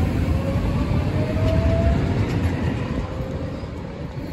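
MBTA Green Line light-rail train passing with a loud low rumble and a thin whine that rises in pitch. The sound fades over the last second or so as the train moves away.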